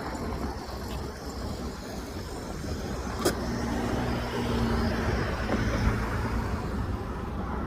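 A car running: a steady low rumble of engine and road noise, with a single sharp click about three seconds in.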